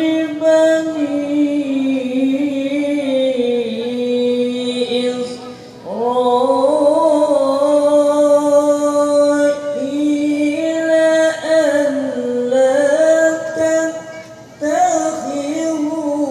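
A male qari reciting the Quran in melodic tilawah style into a microphone. He sings long, held phrases with ornate pitch turns, breaks briefly for breath about six seconds in and again near the end, then starts a new phrase each time.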